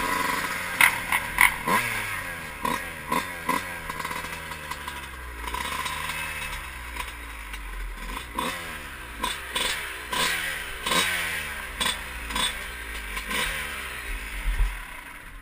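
Dirt bike engine ridden at low speed, revving up and falling back again and again in short throttle blips, with sharp clicks and knocks over it. The engine note fades near the end as the bike comes to a stop.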